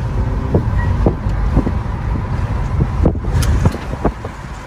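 Mercedes-Benz GLB 250 on the move, heard inside the cabin: a steady low engine and road rumble, with several short knocks.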